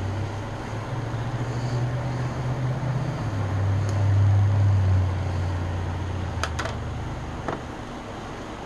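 A low mechanical hum that swells around the middle and drops slightly in pitch, with a few light clicks and taps in the second half as a small paint jar is unscrewed and handled.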